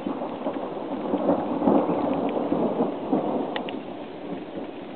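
Thunder rumbling through steady rain, swelling to its loudest about a second and a half in and then dying away, with a few sharp raindrop ticks close by.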